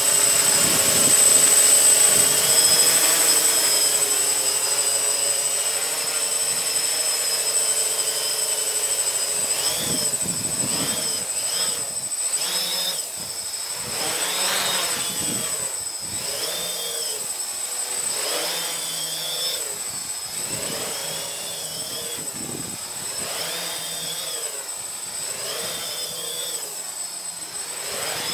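A multicopter's electric motors and propellers whine steadily. From about a third of the way in, their pitch rises and falls every couple of seconds as the flight controller corrects against gusts, with gusty wind rumble on the microphone.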